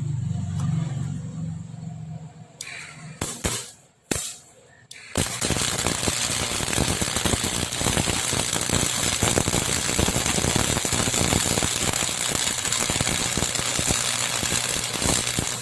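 A low hum and a few sharp clicks, then about five seconds in a MIG welding arc strikes and crackles steadily for about ten seconds, cutting off at the end. The arc is from a newly replaced MIG torch and shows the repaired welder working.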